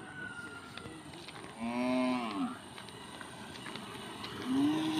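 Cattle mooing: one call about two seconds in, under a second long and bending up then down in pitch, and a second moo starting near the end.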